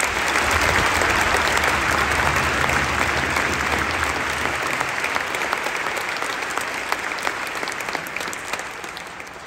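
A stadium crowd of supporters applauding, with many close hand claps; loud at the start and slowly dying away.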